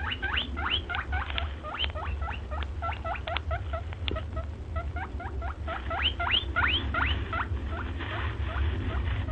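An animal's rapid high squeaks, short upward-sweeping calls about three to four a second, over a steady low hum.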